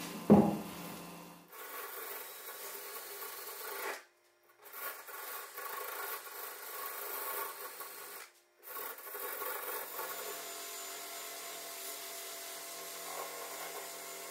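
Cordless drill spinning a small brush against the bare metal of a car door: a steady motor whir with a rasping scrub as corrosion is cleaned out around the molding guides. The sound cuts out completely twice, briefly, and carries on.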